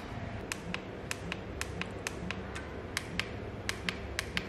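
SNT Q25 1:100-scale micro RC car being run on a tabletop track: a low steady whir with sharp, irregular clicks, a few each second.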